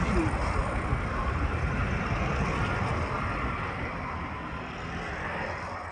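Steady street traffic noise, a dense rumble of passing vehicles, fading down over the last couple of seconds.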